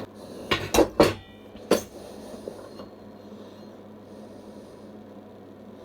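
Metal workpieces knocking together as a copper tube and a stainless steel piece are handled and set up for a joint: four sharp clanks in the first two seconds, then only a faint steady hum.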